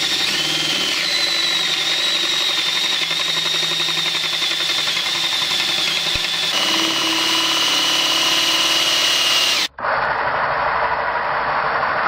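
Power drill boring through plywood with a large Forstner bit: a steady motor whine over the rasp of the cutting, the pitch dropping slightly about halfway through. It breaks off for an instant near ten seconds in and carries straight on, sounding duller.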